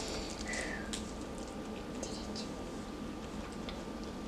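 Faint eating sounds: wet chewing and lip-smacking with scattered small mouth clicks, from people eating corn on the cob and shrimp, over a steady low room hum.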